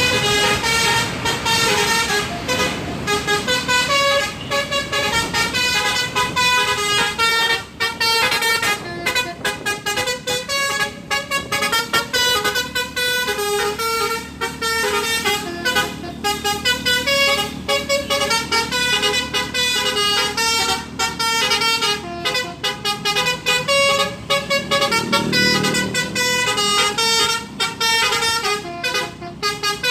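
Bus telolet horn of the Basuri type playing a continuous tune of stepping, multi-note horn blasts, with a bus engine running underneath that grows louder late on.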